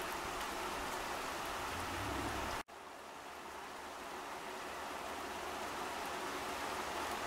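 Steady rain falling on leaves and plants, an even hiss. About two and a half seconds in it cuts out for an instant, comes back quieter, then slowly builds up again.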